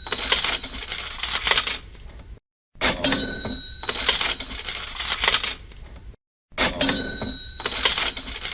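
Cash register sound effect playing on a loop: a bell ding, then a jingling clatter of coins, repeating about every four seconds with a short silence between repeats. New repeats start about three seconds in and again near six and a half seconds.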